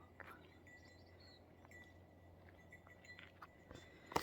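Near silence, with a few faint soft clicks.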